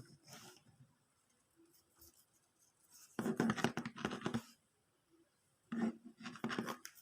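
Two bursts of close scratching and handling noise, each a little over a second long, with a quieter one near the start.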